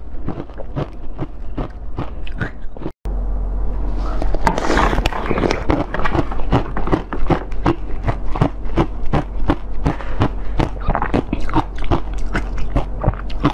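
Close-miked eating sounds: biting into and chewing jelly, with a dense run of wet clicks and smacks. A brief dropout to silence about three seconds in.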